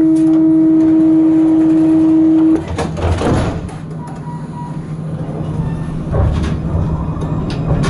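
Tram door-closing warning tone: one steady, loud tone that cuts off abruptly about two and a half seconds in. A thump follows as the doors shut, and near the end a faint rising whine begins as the tram starts to move off.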